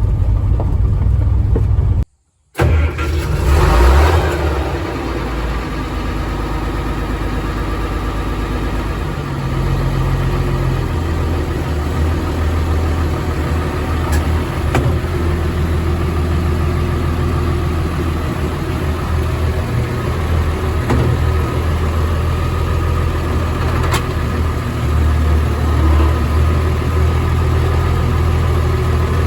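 An engine starts up and then runs steadily, its note shifting a little a few times.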